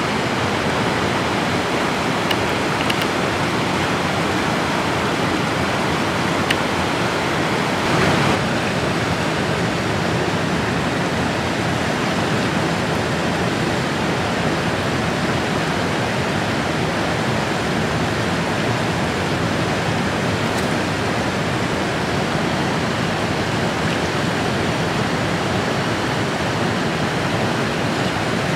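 Mountain river running over rocks and small falls: a steady, even rush of water, with a brief louder moment about eight seconds in.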